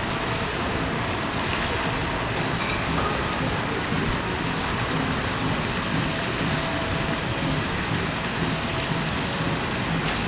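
Steady outdoor rushing background noise with no distinct events.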